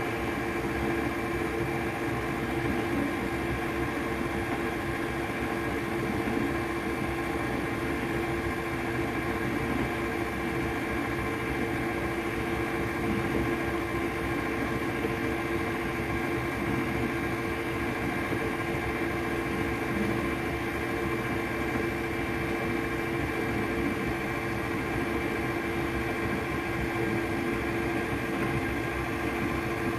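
KitchenAid bowl-lift stand mixer running steadily on low speed, its motor giving an even hum with a few steady tones, as it mixes heavy cream slowly into cheesecake batter.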